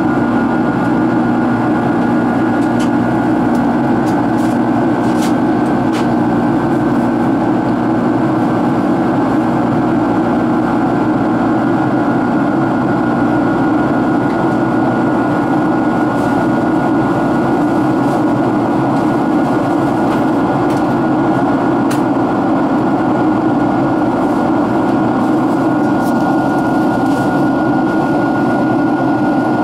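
Steady drone of a Boeing 767-336ER's Rolls-Royce RB211 turbofan engines and rushing airflow, heard inside the cabin in flight, with a steady high hum running through it. A few faint ticks sound over it.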